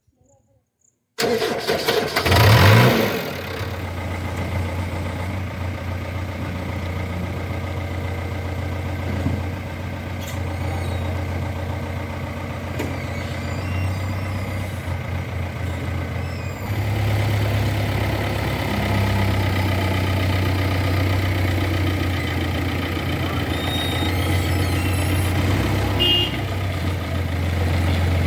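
A diesel engine starts about a second in, revs up briefly, then settles into a steady idle.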